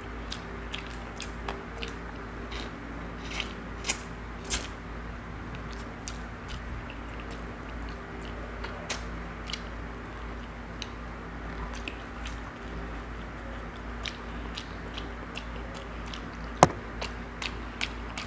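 Close-miked eating sounds of a man chewing pieces of tilapia eaten by hand: many small, sharp mouth clicks and smacks over a steady low hum, with one much louder click about 16 s in.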